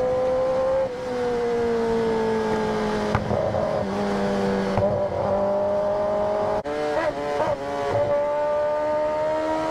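Kawasaki ZX-10R's inline-four engine heard on board at highway speed. Its note sinks as the throttle eases off, wavers through a few short blips with a brief cut partway through, then rises steadily as the bike accelerates again, over wind and road noise.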